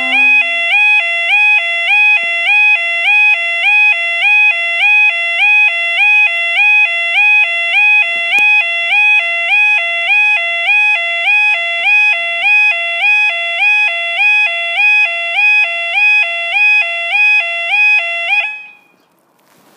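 Railway level crossing alarm sounding its two-tone warbling yodel, a low-high cycle repeating about one and a half times a second while the barriers are down. It stops suddenly about eighteen seconds in.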